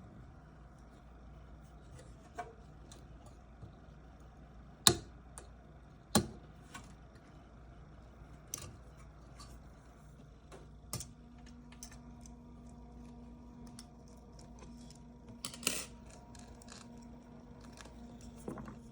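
Noctua NF-A9x14 chromax 92 mm slim PC fan running with a steady low hum, broken by irregular clicks and scrapes, several of them loud. This grinding is the sign of a fault in the fan. A second low hum note joins about halfway through.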